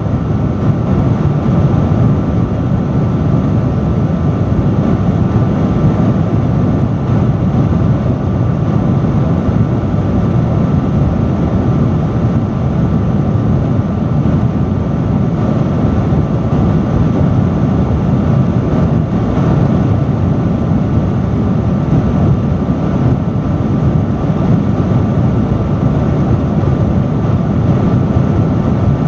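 Loud industrial fan running steadily: a constant rush of air, strongest in the low range, with a faint steady hum from the motor and blades.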